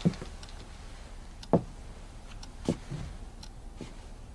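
A few soft knocks or ticks, one every second or so, the clearest three at the start, about a second and a half in and near three seconds in, over a faint low hum.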